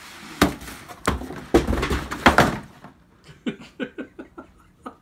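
Cardboard shoebox being slid out of a shipping carton and set down on a table: several sharp knocks and scrapes of cardboard in the first two and a half seconds, then a run of short, quieter ticks.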